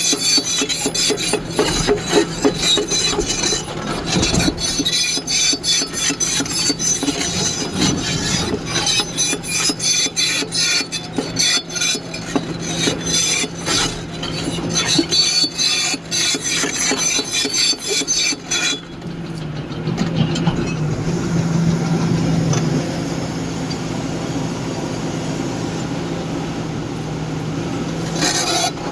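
Heavy earthmoving machine's diesel engine running steadily while rock and steel scrape and clatter with many sharp knocks. About two-thirds of the way in the clatter stops abruptly and only the steady engine drone is left.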